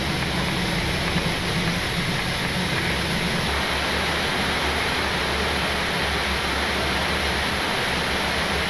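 Steady rushing noise inside a Boeing 777-300ER climbing after takeoff: air and jet engine noise, with a slight change in the low hum about three seconds in.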